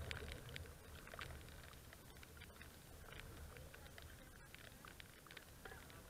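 Faint, irregular ticking of light rain on the camera housing, over a low rumble that eases after the first half-second.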